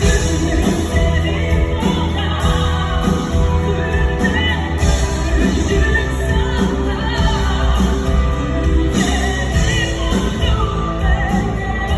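Live band music with throat singing: a steady deep drone under a shifting, high whistling melody line.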